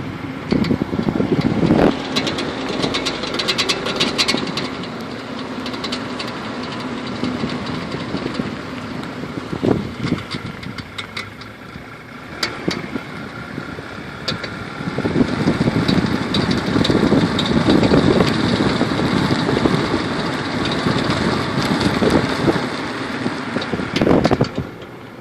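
Audi A4 driven slowly through tight left and right turns, its engine and tyres running steadily, with bursts of sharp clicking from the car during the turns. The clicking is a fault the owner has not been able to trace.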